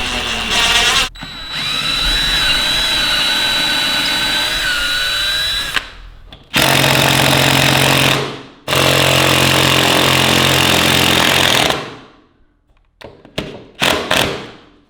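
Power drill running in three long runs of several seconds each with short stops between, the later runs with a deeper hum; a few light clicks near the end.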